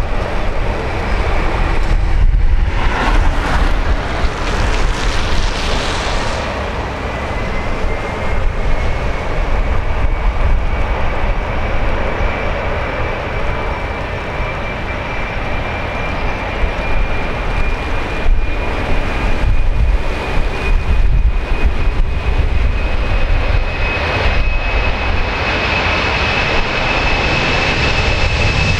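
Boeing 767-300's twin General Electric CF6-80C2 turbofan engines at takeoff power during the takeoff roll. A loud, steady jet roar with a fan whine that comes in about six seconds in and climbs slowly in pitch as the aircraft accelerates.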